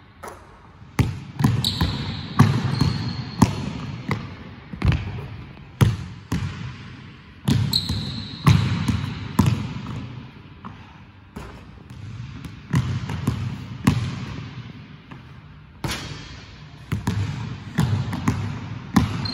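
Basketball dribbled on a hardwood gym floor: uneven runs of sharp bounces that echo through the large hall, with a few brief high sneaker squeaks as the player cuts and plants.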